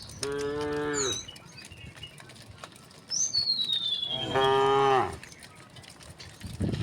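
Cattle mooing: a short moo just after the start and a longer, louder moo in the middle, with a thin high whistle sliding down in pitch over the second moo.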